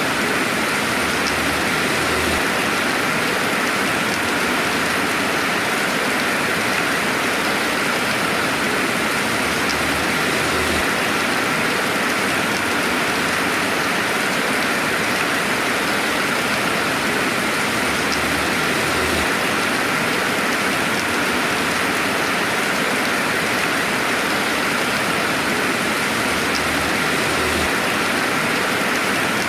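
Steady rainfall: an even, continuous hiss of rain with now and then a single drop ticking through.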